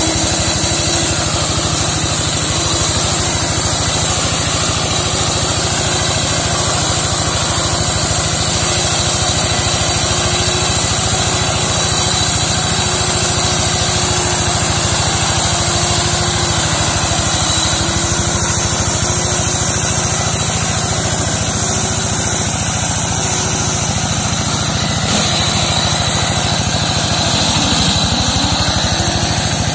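Walk-behind hand tractor with a brush-mower attachment running steadily under load as it cuts through undergrowth, a steady engine pulse with a constant high hiss over it.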